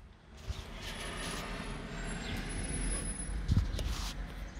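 Low, steady vehicle rumble, with a light knock about three and a half seconds in.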